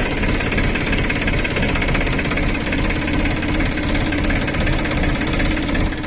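Massey Ferguson 254 Dynasmart tractor's diesel engine running steadily with an even, rapid knock.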